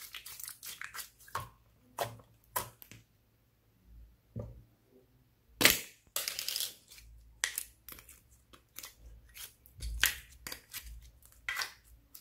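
Slime being squeezed and kneaded by hand, giving irregular wet crackles and pops, with a louder sharp crackle a little before halfway.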